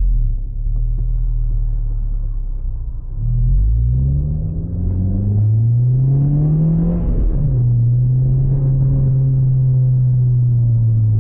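2013 Honda Civic Si's four-cylinder engine and Borla XR1 exhaust heard from inside the cabin while driving: a steady drone, then the revs climb for about three seconds under acceleration and drop sharply about seven seconds in, as at a gear change, before settling into a steady drone again.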